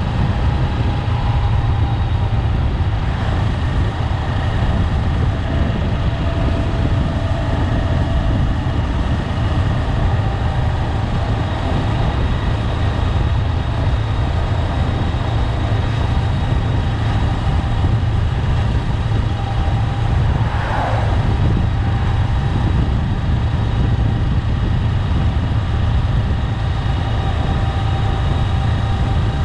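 Honda 400X motorcycle's parallel-twin engine running steadily under way, with a heavy, even low rumble. A brief louder swell comes about twenty-one seconds in.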